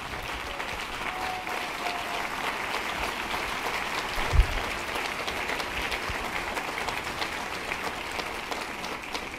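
Audience applauding steadily, with a single low thump a little over four seconds in.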